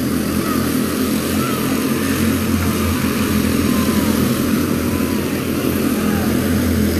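Several quarter midget race cars racing around a small oval, their small engines making a steady buzz. The engine pitch rises and falls a few times as cars pass.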